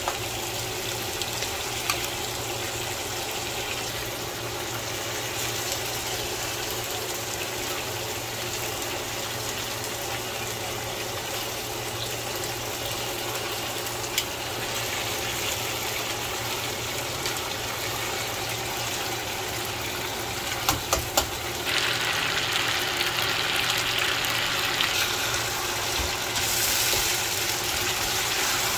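Chicken drumsticks sizzling in oil in a nonstick frying pan, with a few clicks of metal tongs against the pan about two-thirds of the way through. The sizzle grows louder and brighter just after the clicks, as the pieces are turned.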